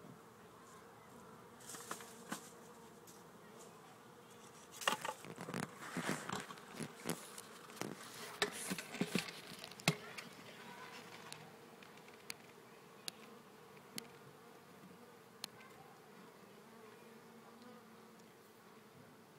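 Honeybees buzzing as a steady hum around comb cut open from a wild colony. From about five to ten seconds in there is a dense run of crackling clicks and knocks, then a few sharp single ticks.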